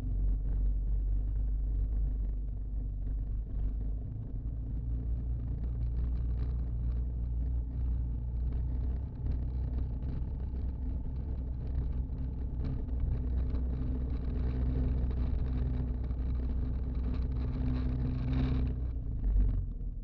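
Yamaha Rhino 700 FI's single-cylinder engine running steadily under load as the side-by-side wades through deep water, with water churning and splashing around it. A brief louder rush comes near the end as it drives out of the ford.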